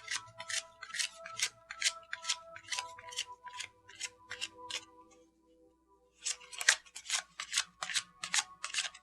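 Tarot cards being shuffled by hand: an even run of crisp card slaps about three a second, a pause of about a second midway, then the slaps resume a little faster. Soft background music underneath.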